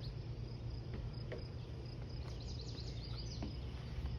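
Outdoor ambience by a lake: a steady low rumble under a high chirp that repeats rapidly and evenly, with a quick run of falling chirps about two seconds in.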